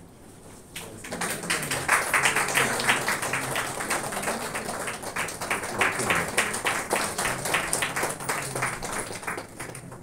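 Audience applauding: many people clapping, starting about a second in and fading out near the end.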